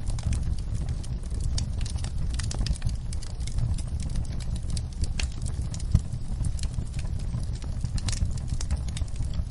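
Wood fire burning in a fireplace: a steady low rumble of the flames with frequent small crackles and pops, one sharper pop about six seconds in.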